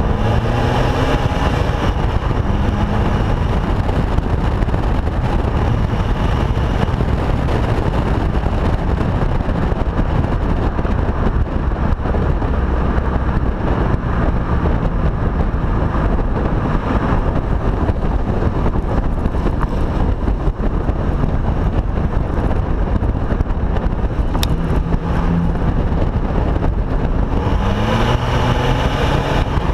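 Exhaust of a 2013 Audi A3 8V 2.0 TDI four-cylinder diesel with a Stage 1 tune and sport exhaust, heard right at the tailpipes while driving, over a steady low rumble of road and wind noise. The engine note rises under acceleration at the start and again near the end.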